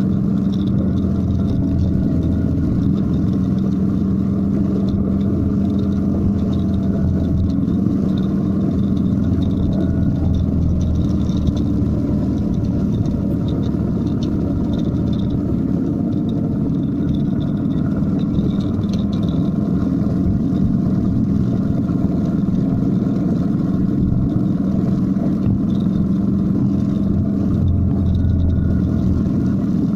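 Motorcycle engine running steadily at a cruising speed of about 45 km/h, a constant low drone mixed with wind and road noise.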